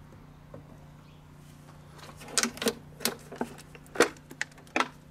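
A run of about ten sharp clicks and knocks, starting about two seconds in: plastic bottles and fuel return hoses being handled on the engine's plastic cover.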